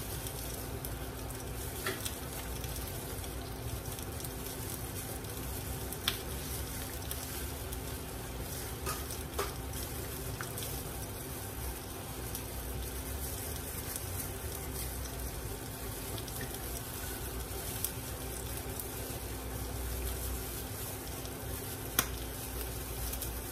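Spring rolls frying in hot oil: a steady sizzle throughout, with a few sharp clicks, the loudest near the end.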